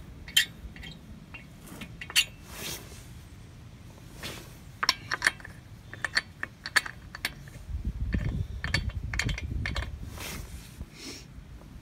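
Steel lug nuts being spun on by hand onto the wheel studs, started loosely and not yet tightened. It is heard as scattered, irregular small metallic clicks and light rattles.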